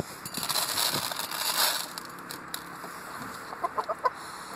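Rhode Island Red hen giving a few short clucks near the end, after a rustling noise in the first couple of seconds.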